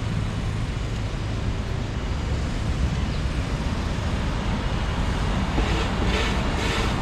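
Steady street traffic: the rumble and hiss of cars passing on a busy city avenue. People's voices come in near the end.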